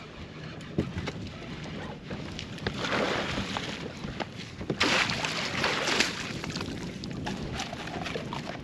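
Water splashing as a hooked bass thrashes at the surface beside the boat and is scooped up in a landing net, loudest in two bursts about three and five seconds in.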